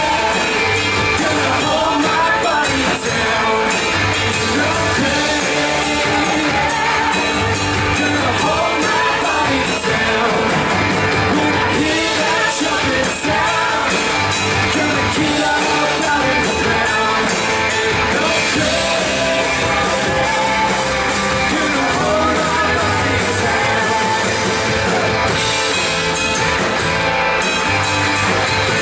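Live worship band playing an upbeat rock-style song, with singing over bass, drums and guitar, at a steady beat.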